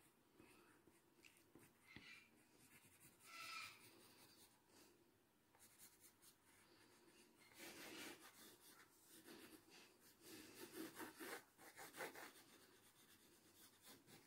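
Graphite pencil scratching faintly on paper in quick shading strokes, with a short burst about three and a half seconds in and a busier run of strokes from about eight to twelve seconds.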